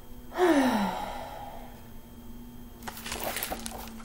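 A woman sighs once about half a second in, the pitch falling. Near the end, paper rustles as the pages of a picture book are turned.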